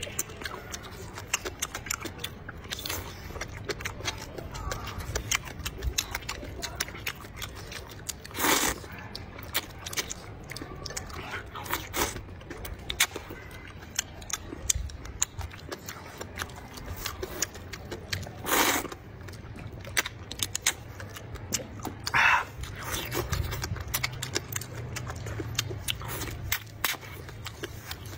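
Close-up eating of a bowl of rice noodles: steady wet chewing and lip-smacking clicks throughout, with a few loud slurps of noodles, about 8 s in, near 19 s and again a few seconds later.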